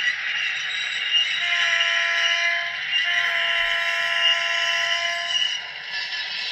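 Sound decoder in an HO-scale Milwaukee Road F-unit diesel model blowing a multi-chime diesel horn: two long blasts, the first starting about a second and a half in, the second running to about five seconds in.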